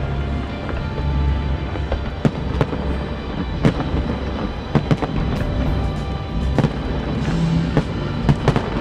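Aerial fireworks shells bursting in an irregular string of sharp bangs, roughly one every second or so, with a rumble beneath. Music plays throughout.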